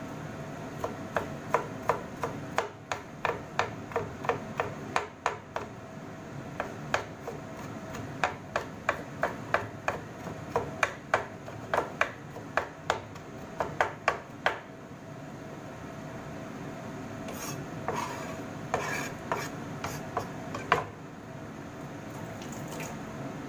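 Chef's knife chopping garlic on a wooden cutting board: a steady run of knife strikes, about two or three a second, for some fourteen seconds. Then a few scattered louder knocks and scrapes near the end.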